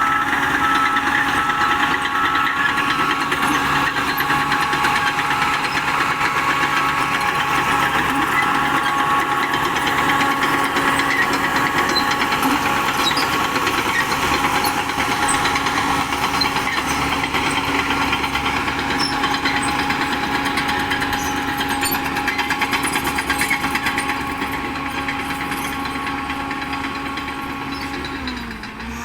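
Diesel engine of a Shantui DH10B2 crawler bulldozer running steadily at working speed. Near the end the engine note dips briefly and rises again.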